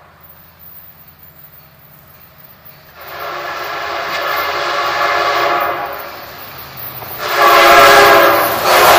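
Amtrak passenger locomotive's air horn blowing a chord as the train approaches. A long blast starts about three seconds in and grows louder. After a short dip, a second, louder blast comes near the end.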